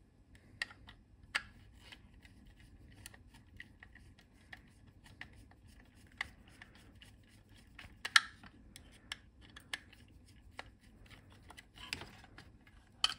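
Small screwdriver turning tiny screws out of a plastic device housing: faint, irregular clicks and scrapes of the driver and the handled case, with a sharper click about eight seconds in.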